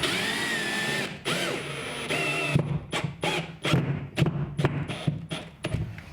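Cordless drill running: a steady whine for about a second, two shorter runs, then a string of short stuttering trigger bursts.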